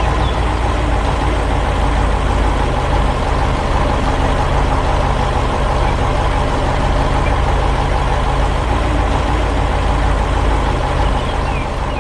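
Heavy diesel engine of a construction machine, a telehandler, running steadily with an even low hum.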